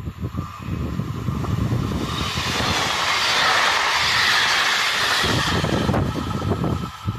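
Z 24500-series TER 2N NG double-deck electric multiple unit passing without stopping: the rush of its wheels on the rails swells from about a second in, is loudest as the train goes by, and falls away near the end.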